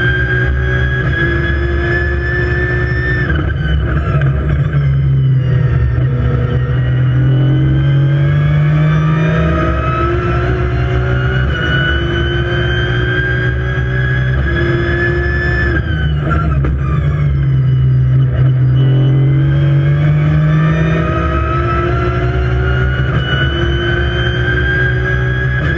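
Aston Martin Vantage GT3's V12 racing engine heard from inside the cockpit under hard acceleration, its pitch climbing through the gears. Twice, about three seconds in and again about sixteen seconds in, the pitch drops sharply as the car slows and shifts down. Each time it then climbs again.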